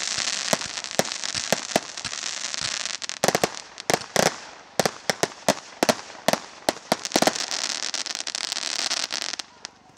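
Fireworks going off: many sharp bangs in quick succession over a steady hiss of crackling. The crackle swells twice, in the first few seconds and again near the end, then dies away just before the end.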